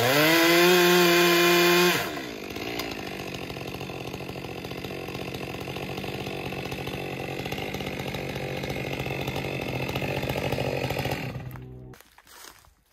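Two-stroke chainsaw revved up to full throttle for about two seconds, then running at a lower, steady speed for several seconds before it shuts off near the end.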